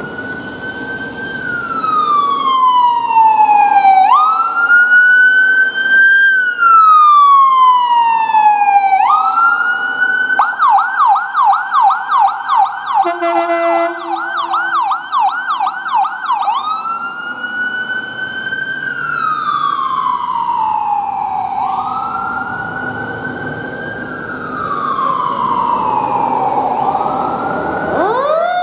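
Electronic sirens of fire department rescue ambulances running with lights and siren. The slow wail rises and falls every four to five seconds, switches to a fast yelp for about six seconds in the middle, with a short horn blast inside the yelp, then goes back to the wail. A second siren starts rising right at the end.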